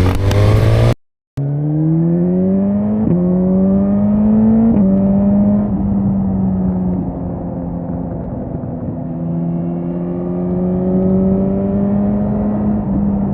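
Suzuki GSX-S 1000's inline-four engine under way. The sound cuts out briefly about a second in. After that the engine pitch climbs hard with two quick drops for upshifts, about three and five seconds in, then holds fairly steady and climbs slowly again for the last few seconds.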